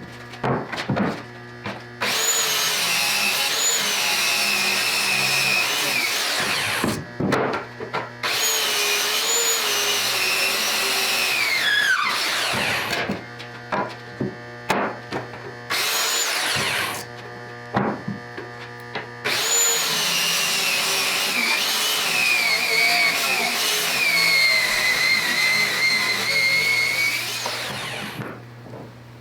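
Circular saw cutting black walnut: four runs of the motor whining through the wood, the pitch sliding down as the blade winds down at the end of each, with short knocks between runs.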